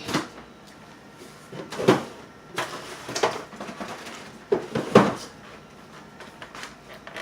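Knocks and bumps of kitchen doors and things being taken out and set down, a handful of separate strikes, the loudest about two seconds and five seconds in.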